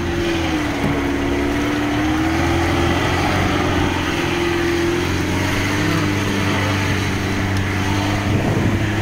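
Lada Niva's engine running under load as the car crawls along a rough, muddy dirt track with the centre differential locked, its pitch dipping and rising slightly, heard from the cab with the side window open.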